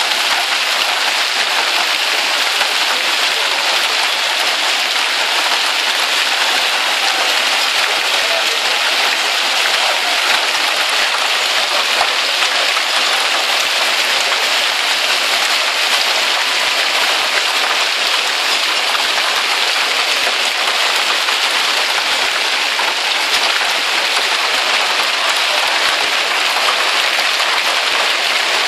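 Golf-ball-sized hail and rain pelting tarmac and parked cars: a loud, steady hiss of countless impacts that never lets up.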